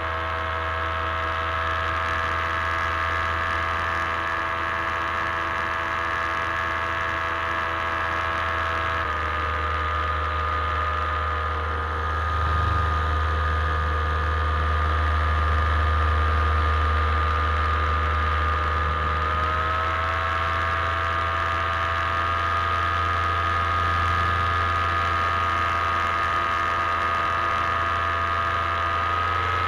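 Paramotor engine and propeller running steadily in flight. Its pitch drops slightly about nine seconds in and rises a little around twenty seconds, as the throttle changes.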